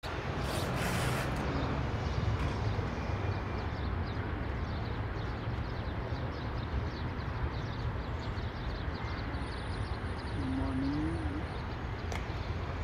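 Outdoor ambience: a steady low rumble with many small birds chirping throughout, a brief rush of noise near the start, and a short low call about ten seconds in.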